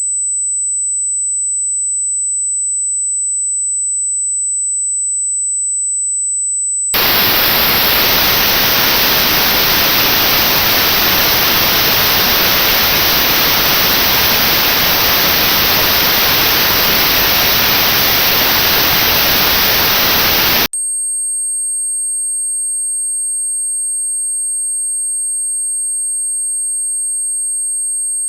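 A steady, high-pitched pure test tone. About seven seconds in, it switches to loud notched white noise: an even hiss with a narrow band of high frequencies cut out, the kind used in notched sound therapy for tinnitus. Near the end the noise cuts off abruptly and another steady high tone takes over, with fainter steady tones beneath it.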